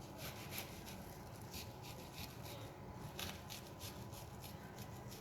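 Kitchen knife slicing through an onion onto a wooden cutting board: a run of quick, light, irregular cutting strokes, several a second, as the onion is cut into fine pieces.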